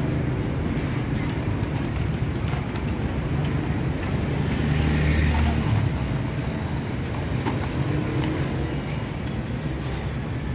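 Street traffic: motor vehicle engines running close by, one growing louder about halfway through.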